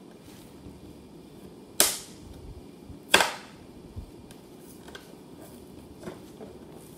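Two sharp snaps about a second and a half apart, from toy packaging being pulled open to free a push-along Thomas engine, with quieter handling noise between them.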